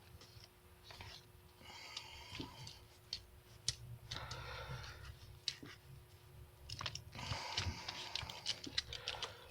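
Faint hand-tool and parts handling: a few scattered light clicks and soft rustling, over a faint steady hum.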